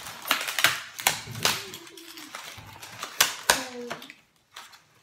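A handful of sharp, irregular clicks and taps, most in the first second and a half and two more a little after three seconds in, with a couple of brief vocal sounds between them.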